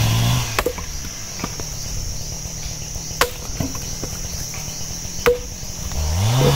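Chainsaw engine dropping from cutting speed to a low idle, then revving back up near the end. While it idles there are three sharp chopping knocks on wood, about two seconds apart, over a steady high insect buzz.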